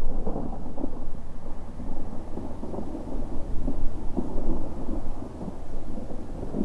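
Thunder rolling in a long, irregular low rumble that eases briefly past the middle and then builds again.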